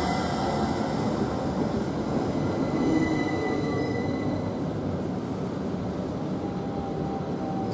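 Class 387 electric multiple unit moving slowly alongside the platform with a steady rumble, and thin squealing tones from its wheels and brakes that drift in pitch.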